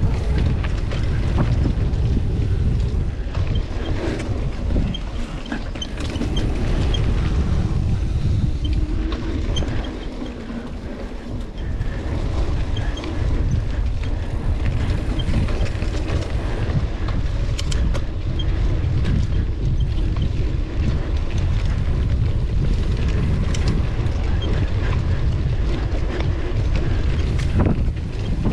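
Ride noise of a mountain bike on a trail: gusty wind rumble on the microphone over the tyres' rolling noise, with a few sharp rattles from the bike.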